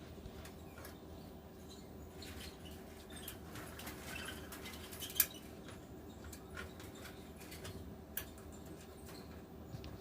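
Faint scratching and small clicks of hands handling cables and pushing front-panel power-switch and LED connectors onto header pins inside a PC case, with one sharper click about five seconds in. A faint steady hum sits underneath.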